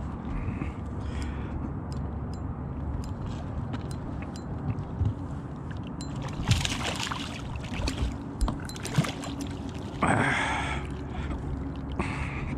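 A hooked bass splashing as it is scooped from the lily pads in a landing net, with a few clicks, then water running off the net as it is lifted from the water, over a steady low hum.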